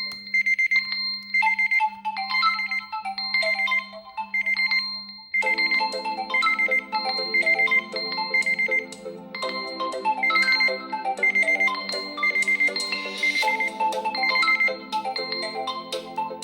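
A smartphone's melodic alarm tone playing: a simple tune of short electronic notes over a held low note and a repeating high beep, with a fuller accompaniment joining about five seconds in.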